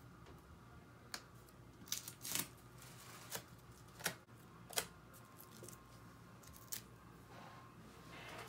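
Hands handling a picture frame and the print in it: about seven light, irregular clicks and taps of fingers on the frame and its glazing, with a soft brushing rustle near the end.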